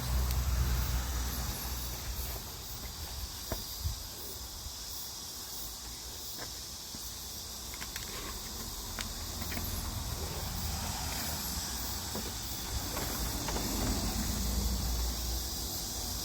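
Steady high-pitched hiss, with a low rumble that swells near the start and near the end, and a few faint clicks.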